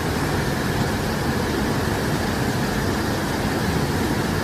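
Steady roar of a waterfall's falling water, an even rushing noise with no breaks.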